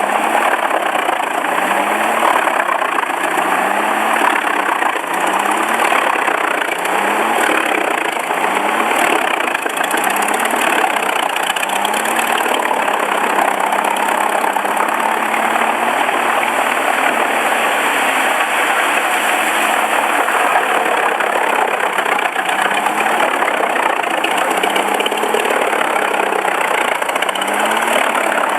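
Engine-driven wood-processing machine running steadily under a dense mechanical noise, with a short rising tone repeating about once a second for a while and again near the end.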